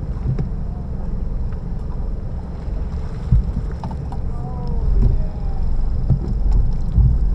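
Electrofishing boat under way: a steady low motor rumble with wind on the microphone and a faint steady high whine.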